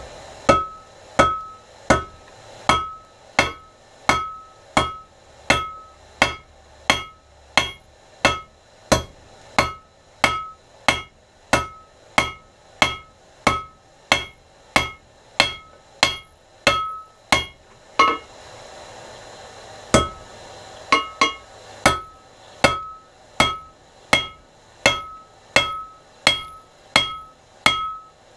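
Blacksmith's hand hammer striking hot iron on an anvil in a steady rhythm, about one blow every three-quarters of a second, each blow with a bright ring from the anvil. The blows stop for about two seconds roughly two-thirds of the way through, then resume at the same pace.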